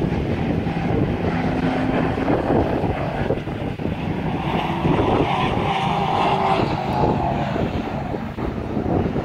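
Race car engines running as the cars lap a dirt oval track, several engine notes overlapping and rising and falling in pitch.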